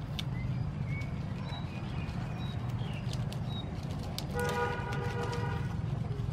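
Vine leaves rustling and snapping as they are picked by hand, over a steady low rumble. About four and a half seconds in, a steady horn-like tone sounds for about a second.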